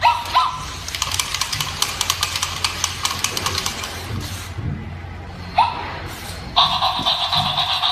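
Toy robot dog's electronic sound effects: a short beep at the start, then a fast run of clicks for about two seconds. A brief chirp follows later, and a pulsing electronic tone runs near the end.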